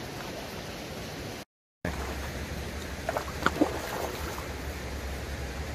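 Steady outdoor hiss that drops out abruptly for a moment about a second and a half in; after the break a low hum joins it, and a few short, sharp sounds come about three and a half seconds in.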